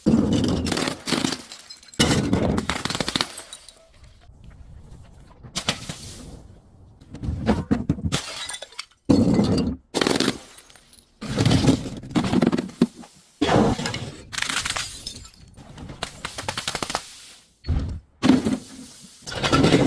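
Glass bottles being broken and crushed: a run of sudden cracking and crunching bursts, each a second or two long, some cutting off abruptly.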